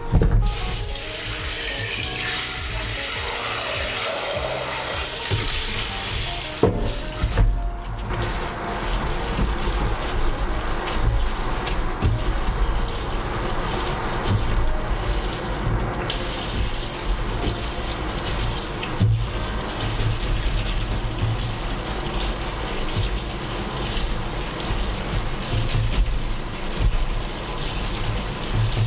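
Tap water running steadily into a plastic colander of cooked soba noodles in a stainless steel sink, as hands swish and rub the noodles to rinse them. The water sound drops out briefly twice about a quarter of the way in.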